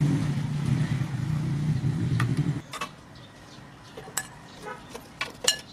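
A loud, steady low hum that cuts off suddenly about two and a half seconds in, followed by scattered clicks and clacks as cut apple pieces are tipped from a china plate into a plastic blender jug, the sharpest clack near the end.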